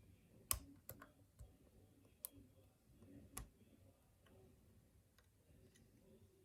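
Lock pick and tension wrench working the pins of a six-pin solid brass padlock: a handful of small sharp clicks in the first few seconds, the loudest about half a second in, then a few faint ticks.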